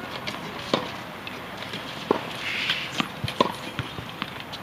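Tennis balls being struck and bouncing on a hard court: a series of sharp pops at irregular intervals, with a brief scuffing noise about halfway through.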